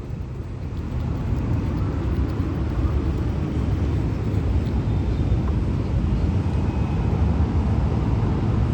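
Steady low rumbling noise with a hiss above it, even throughout, with no knocks, clicks or rhythm.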